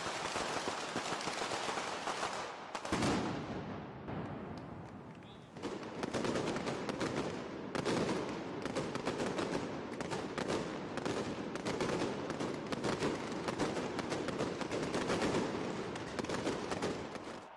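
Fireworks and strings of firecrackers going off in a dense, rapid rattle of sharp bangs that barely pauses, easing a little about four seconds in and then building again.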